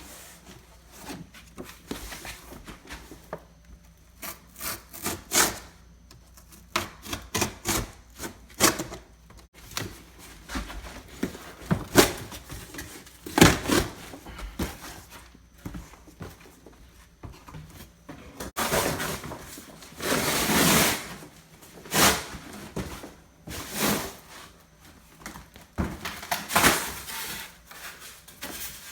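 Packaging being cut and pulled off a new refrigerator: irregular scraping and rubbing with scattered knocks, and a longer rasping stretch about two-thirds of the way in.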